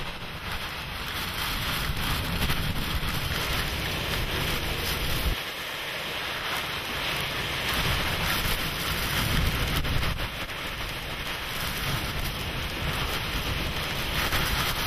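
Hurricane-force wind and driving rain, with gusts buffeting the microphone in a heavy low rumble. The rumble briefly drops away about five seconds in, leaving the hiss of the rain.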